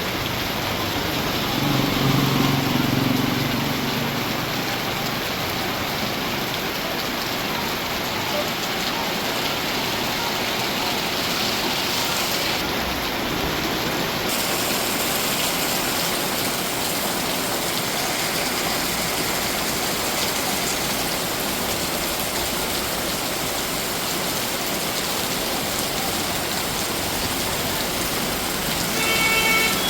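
Heavy rain pouring down, a steady dense hiss throughout. A brief low pitched sound rises over it about two seconds in, and a short pitched tone sounds just at the end.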